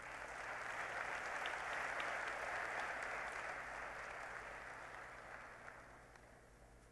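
Large audience applauding, building over the first couple of seconds and then fading away near the end.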